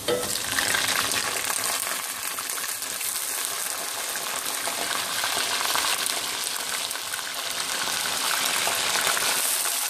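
Raw chicken pieces frying in hot oil with browned onions in an aluminium karahi: a steady sizzling hiss that swells just after the start as the chicken goes in, with a spatula stirring through it.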